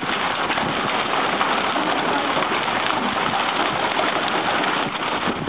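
Heavy downpour of rain and hail pelting down steadily, a dense patter of countless small strikes.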